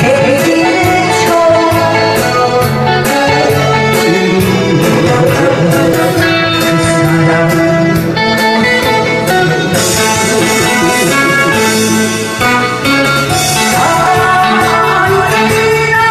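Korean trot song music: an electric guitar playing over a keyboard backing with a steady beat.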